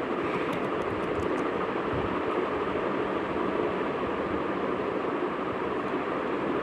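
Steady, even rushing noise, with a few faint ticks about a second in.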